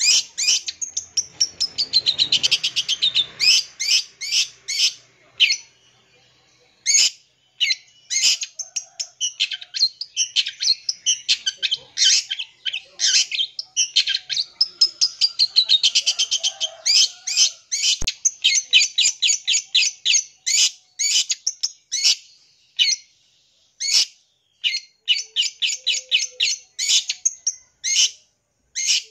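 Long-tailed shrike (cendet) singing a fast, varied song full of mimicked calls. It runs as quick volleys of sharp chattering notes, broken by sweeping whistled phrases that arch up and down.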